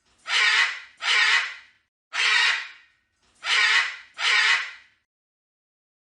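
Parrot squawking: five squawks of about half a second each, two close together, one alone, then two more, stopping about five seconds in.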